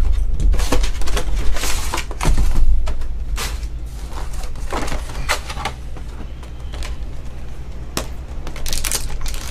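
Clear plastic display trays and card packs being handled and set down on a table: irregular clacks, knocks and rustles, busiest in the first few seconds.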